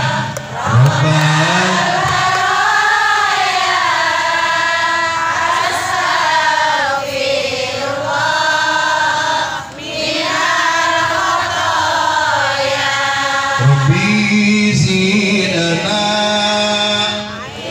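A congregation of many voices chanting together in unison, a slow melody held in long drawn-out lines with brief pauses for breath. A lower voice joins in about a second in and again near the end.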